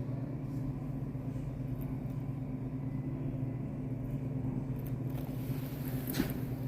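Steady low mechanical hum, with a short hiss and a single click near the end.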